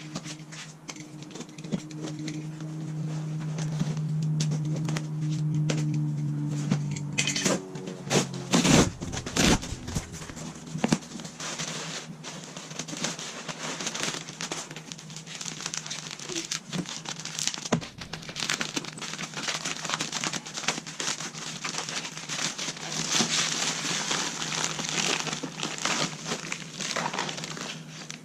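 Packaging crinkling and rustling as new fork tubes are unwrapped, with irregular crackles and a few sharper knocks about a third of the way in. A steady low hum runs under the first part, then stops.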